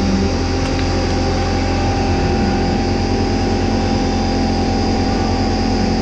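Air compressor running steadily with a constant low hum while it feeds air to the front tyre through a hose-fed inflator gauge.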